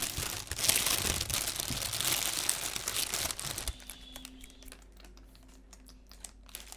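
Plastic packaging crinkling as it is handled, dense and continuous at first, then dropping to a few faint crackles a little past halfway.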